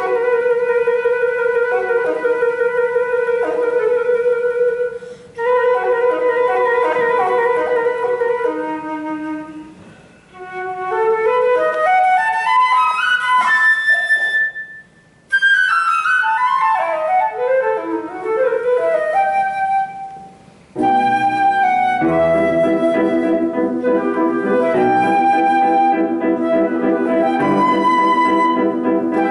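Concert flute with grand piano accompaniment. The flute holds a long note, then plays fast rising and falling runs broken by two short pauses. About three-quarters of the way through, the piano comes in fuller with sustained chords under the flute.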